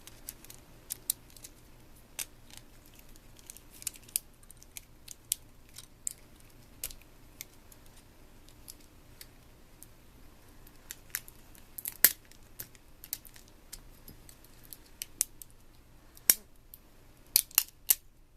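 Flathead screwdriver prying at the dock connector cable assembly of a Palm Pilot PDA: scattered sharp clicks and ticks of metal tool on small plastic and metal parts. The loudest click comes about twelve seconds in, with a cluster of three near the end.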